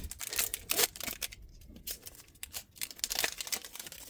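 Foil booster-pack wrapper crinkling and tearing open, with trading cards being handled: a run of sharp, irregular rustles and crackles.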